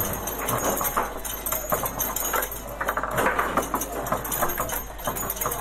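Foosball table in fast play: a rapid run of irregular clacks and knocks as the ball is struck by the figures and the rods rattle, over faint background voices.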